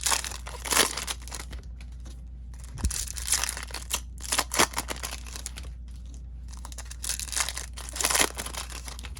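Trading-card packaging crinkling and tearing as it is opened, in repeated irregular bursts, over a steady low hum.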